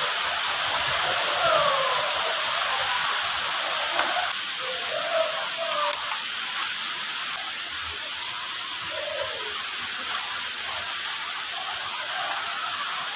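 Waterfall rushing steadily: a continuous hiss of falling water.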